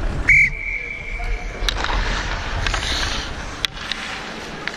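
Ice hockey referee's whistle blown right at the microphone: one loud blast about a third of a second in that settles into a steady high tone held for over a second, signalling a stoppage of play. Skates and sticks then scrape and click on the ice.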